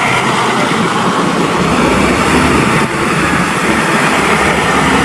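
Water running steadily over a toy vehicle as it is washed.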